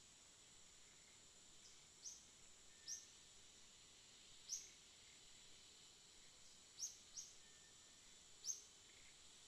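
Faint, short high chirps, about six at irregular intervals, over a steady high insect drone.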